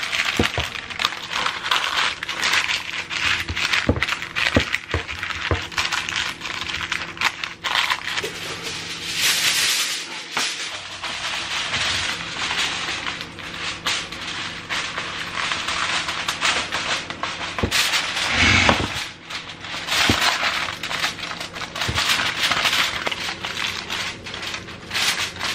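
Parchment paper and then aluminium foil crinkling and crackling as hands press and crimp them over a baking dish. There are louder bursts of crackling about nine seconds in and again about eighteen seconds in.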